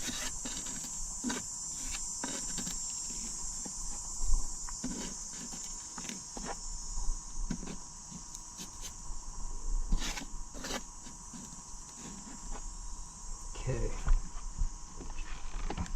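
Scattered clicks and knocks of parts being handled and fitted as a Minn Kota Ultrex trolling motor is put back together, over a steady high-pitched drone of insects.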